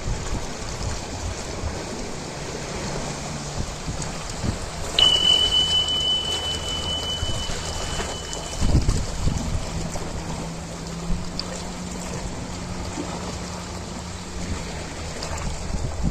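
Ocean waves washing and hissing, with a low steady hum underneath. About five seconds in, a high steady tone sounds for almost four seconds and stops.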